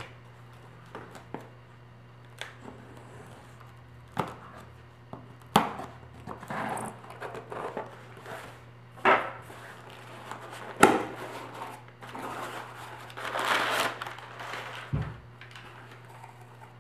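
Packaging being handled: scattered sharp knocks and clicks at irregular intervals, with a longer stretch of rustling about two-thirds of the way through, over a faint steady low hum.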